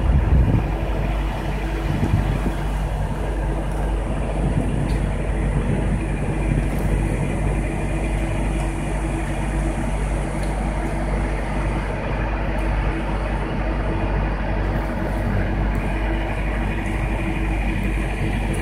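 Idling diesel truck engine: a steady low drone with a constant hum, slightly louder in the first second.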